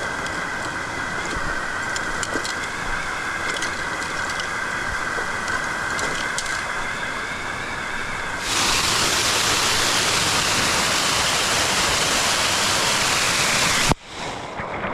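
Steady rushing water with a thin, high, steady drone over it. About eight and a half seconds in it changes abruptly to a louder, fuller rush of water, which cuts off shortly before the end.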